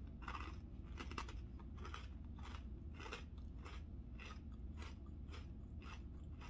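A person chewing a mouthful of chicken salad, a steady run of chews about two to three a second.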